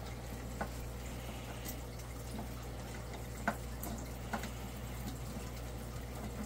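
Scattered light clicks and knocks of the plastic sections of an RC transporter's trailer being handled and fitted together, the sharpest about three and a half seconds in, over a steady low background hum and hiss.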